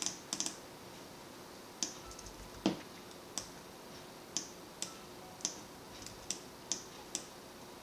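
Computer keyboard keys tapped one at a time: about a dozen separate light clicks, unevenly spaced, with one fuller knock about a third of the way in.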